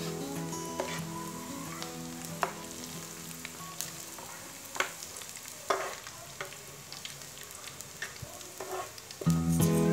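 Minced garlic sizzling in shallow oil in a nonstick frying pan, with a few sharp clinks and scrapes as a metal spoon scoops it into a wire-mesh strainer. Acoustic guitar music fades out in the first two seconds and comes back loudly near the end.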